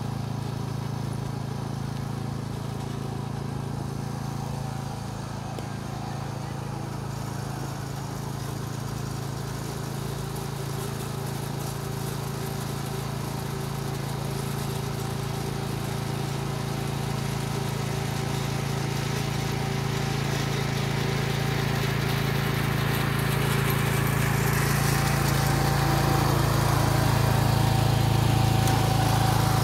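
Petrol-engined cylinder (reel) mower running steadily while being pushed along the pitch, growing louder as it comes closer, with a hiss from the cutting building up over the last few seconds.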